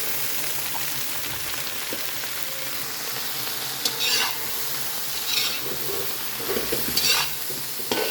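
Chopped vegetables sizzling as they stir-fry in a little oil in a pan, with a spatula scraping through them in a few short strokes about halfway through and near the end.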